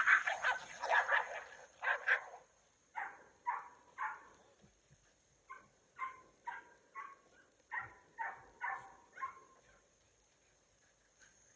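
A pack of young dogs and puppies barking and yipping in excited play. A loud jumble of overlapping barks fills the first two seconds, then single high yips come about twice a second and stop about two seconds before the end.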